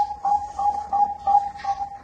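Zebra dove (perkutut, Bangkok line) cooing: a fast, even run of short coos, about three or four a second.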